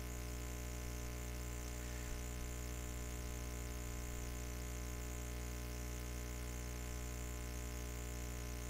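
Steady electrical mains hum with a buzzy stack of overtones, unchanging throughout.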